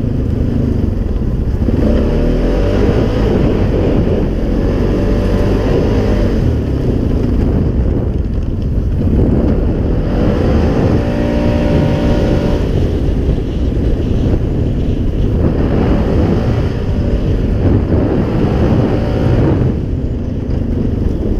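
Polaris Sportsman 570 ATV's single-cylinder engine running under throttle while being ridden, driving through a CVT fitted with an EPI clutch kit. Its pitch rises and falls as the throttle is worked, with wind noise on the microphone.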